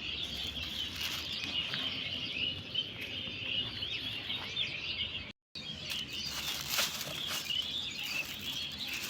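Many small birds chirping together in a dense morning chorus, with a few brief rustles or knocks mixed in. The sound cuts out completely for a moment about five seconds in.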